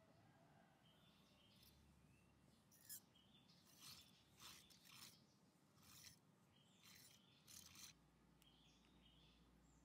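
Metal fork scraping and stirring against a ceramic plate while mixing a dressing, heard as a series of short scrapes starting with a sharp clink about three seconds in and ending about eight seconds in.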